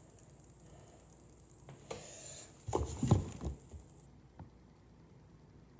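Phone handling noise: a brief rustle about two seconds in, then a quick cluster of knocks and bumps as the phone is moved and set down, followed by quiet room tone.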